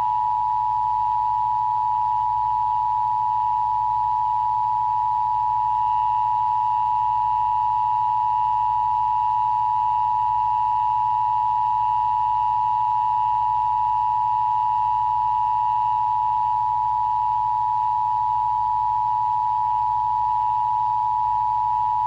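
Emergency Broadcast System Attention Signal: two steady sine tones of 853 and 960 Hz sounding together as one unbroken dual tone, the alert signal of an EBS test.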